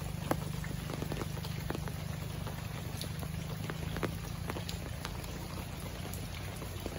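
Rain falling, with many separate drops striking leaves and other surfaces at irregular times, over a steady low hum.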